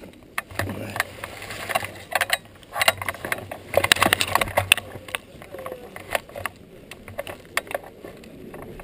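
Airsoft M249 SAW replica rattling and clicking as it is carried at a walk, picked up by a camera mounted on the gun: irregular sharp clicks and knocks, busiest about three to five seconds in, over a faint low hum.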